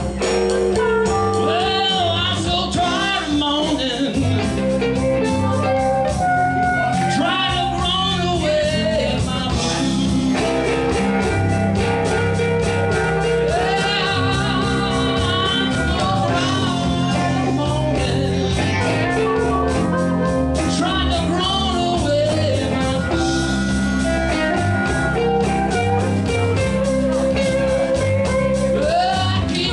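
Blues-rock style music with guitar, a steady beat and a singing voice.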